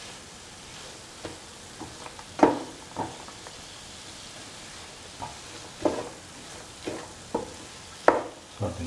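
Beetroot and ground coconut masala sizzling faintly in a pan while a spatula stirs it, scraping and knocking against the pan at irregular intervals, the loudest strokes about two and a half seconds in and near the end.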